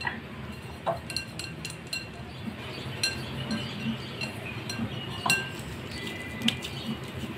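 Hands working inside a cut-glass bowl, greasing it and handling dough, with a few sharp, light clinks against the glass spread through.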